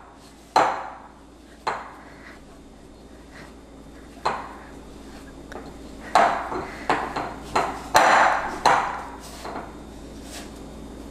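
Pizza dough being pressed and squeezed by hand in a glass mixing bowl: irregular soft knocks of the dough and hands against the glass, with the bowl shifting on the counter. The knocks are scattered at first and come in a quicker run past the middle.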